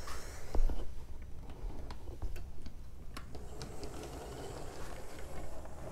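Model train locomotive with a Power-Torque drive running slowly on track: a faint motor whir with irregular light clicks from the wheels on the rails. It is low on power and hasn't run in a long while, and probably needs fresh oil.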